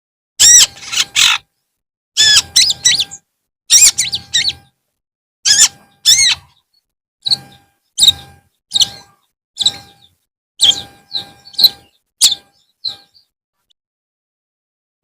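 Long-tailed shrike (cendet) singing: a series of short, loud chattering phrases of high rising-and-falling notes, about one a second, with silence between them. The phrases grow shorter and fainter and stop a little before the end.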